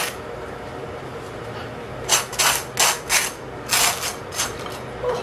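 Table knife scraping butter across slices of toast: about six quick rasping strokes, starting about two seconds in.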